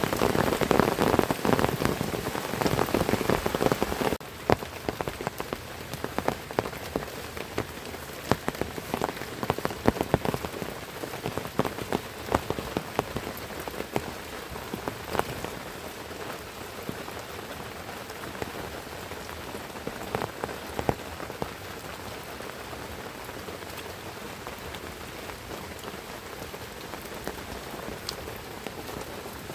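Heavy rain falling, with individual drops striking close by among the steady hiss. It is louder and denser for the first four seconds, then drops abruptly to a lighter, even rainfall with scattered distinct drip strikes.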